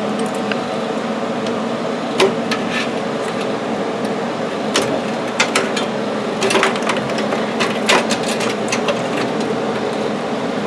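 Cables and power cords being unplugged from a 3D printer and handled: scattered clicks and knocks of plugs and connectors, some in quick clusters, over a steady room hum.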